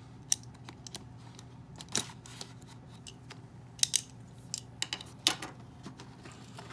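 Scissors snipping through the tape on a cardboard toy box, with a scattering of short, sharp snips and clicks as the box is handled.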